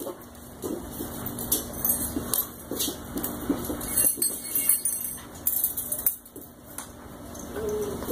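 Puppies in a wire exercise pen: irregular metallic clinks and rattles from the pen's wire panels and the steel kibble bucket hung on it as a puppy feeds.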